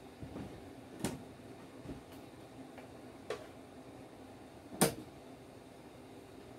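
A few scattered clicks and knocks of a kitchen cupboard and the things in it being handled. The loudest knock comes just under five seconds in.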